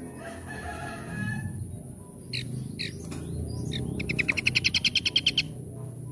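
Small songbird singing: a soft warble, then a few sharp single notes, then a loud rapid trill of about ten notes a second for about a second and a half, starting about four seconds in.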